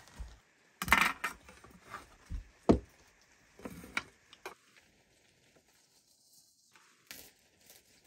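A metal serving tray and dishes being set down on a table: a few clatters and knocks in the first half, the loudest about a second in and near three seconds in, then only faint ticks.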